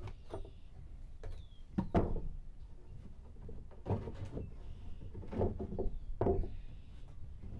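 Sheet plywood knocking and scraping as a cut-out piece is worked loose and pulled from the panel: a string of dull wooden knocks, the loudest about two seconds in.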